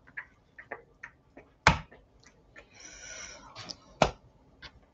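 Raw chicken fillets being handled and moved about on a wooden cutting board: soft wet taps and small clicks, two louder knocks about two seconds apart, and a brief rustle between them.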